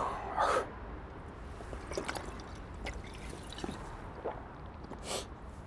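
A man drinking alcohol straight from a glass bottle: small liquid and swallowing sounds over a faint steady low rumble, with a short hiss about five seconds in.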